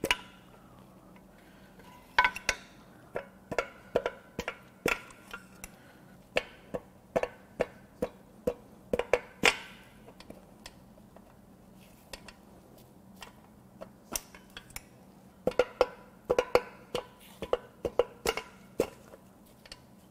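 Hammer tapping on the connecting rods of a Mini Cooper S N14 aluminium four-cylinder block, knocking the rods and pistons out through the bores: sharp ringing metallic taps in runs of several, with short pauses between.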